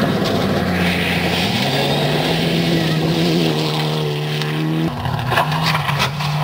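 Mitsubishi Lancer Evolution rally cars' turbocharged four-cylinder engines at full throttle on gravel, the engine note stepping through gear changes and climbing. About five seconds in the note cuts off sharply on a lift, followed by a few sharp cracks.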